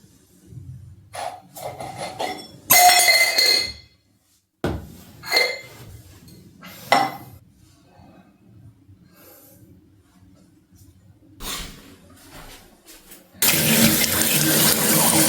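A series of clinks and knocks from hard objects such as dishes or a cup being handled, then a tap opened near the end, with water running steadily.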